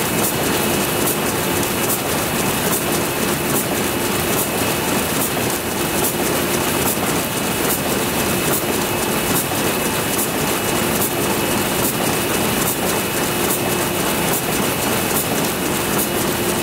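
Power loom weaving terry towel fabric, running with a loud, steady mechanical clatter: evenly repeating sharp beats over a constant machine hum.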